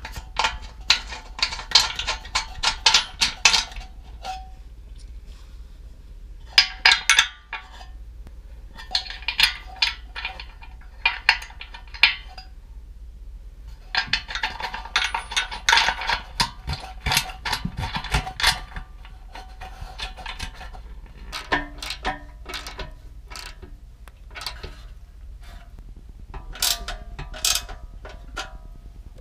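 Hand socket ratchet clicking in repeated quick runs as nuts are run down onto the bumper's mounting studs and bolt, with short pauses between runs.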